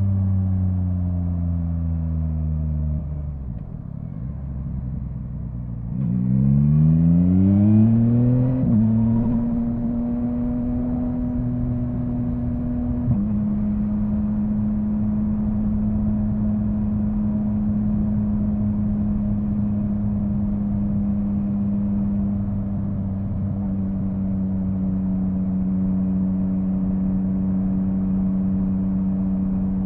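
Yamaha MT-09's inline-three engine heard from on board the motorcycle. It eases off for a few seconds, then revs climb hard about six seconds in and break off in a quick-shifter upshift. After that it holds a steady cruise, with a small step down in pitch a few seconds later.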